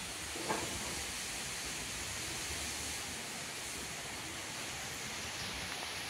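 Steady monsoon rain falling, an even hiss, with a brief tap about half a second in.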